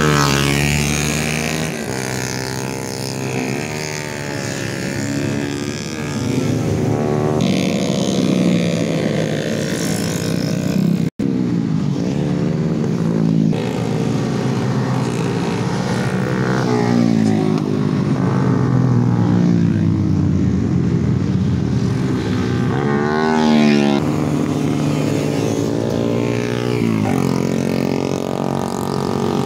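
Several motorcycle engines revving and passing on a winding road, their pitch rising and falling as they accelerate and ease off through the bends.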